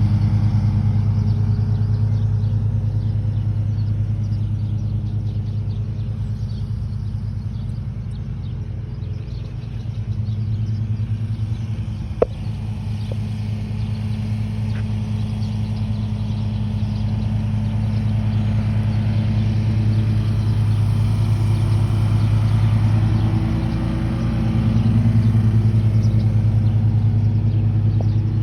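A steady, low engine hum, as of a motor idling, with a single sharp click about twelve seconds in.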